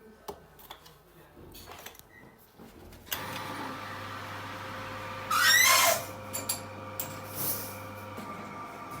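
Light scattered clicks and taps, then about three seconds in a workshop machine starts a steady hum. A little past halfway comes a short, loud, wavering screech that falls in pitch, followed by a few knocks.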